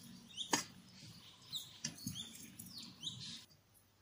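Plastic rice paddle mixing rice in a stainless steel bowl, squeaking and scraping against the metal in short high chirps, with a couple of light knocks on the bowl.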